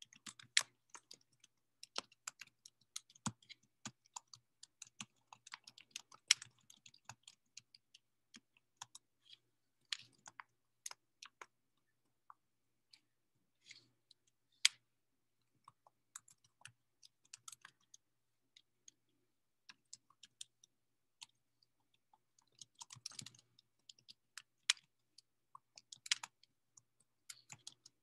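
Typing on a computer keyboard: irregular runs of light keystroke clicks with short pauses, busiest in the first several seconds and again near the end.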